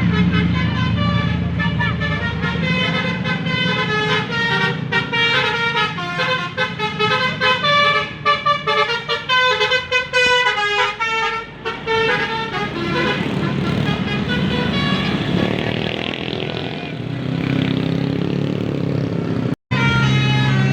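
Indonesian bus telolet horn playing a rapid tune of short stepped notes, with the bus's diesel engine running underneath. After the tune stops, the engine grows louder on its own.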